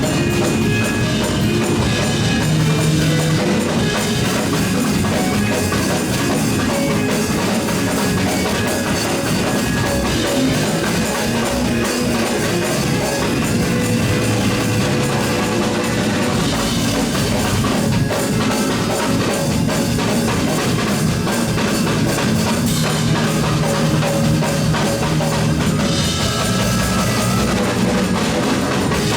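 Fast praise-break music from a live church band, a drum kit driving a quick, steady beat under held chords.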